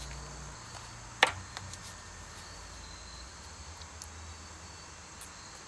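A single sharp click about a second in, with a few faint ticks after it, over a faint steady high chirring of insects.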